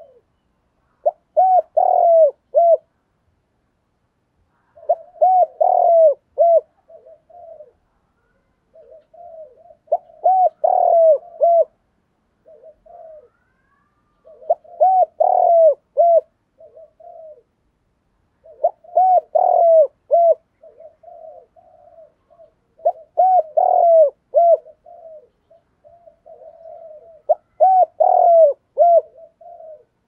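Spotted dove cooing: a phrase roughly every four seconds, each a quick run of short rising-and-falling coos, often with softer notes trailing after.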